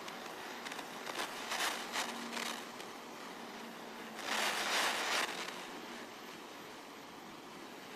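Handling noises and short rustles, then about a second of loud hiss, typical of gas rushing from a hand torch as its valve is opened to light it.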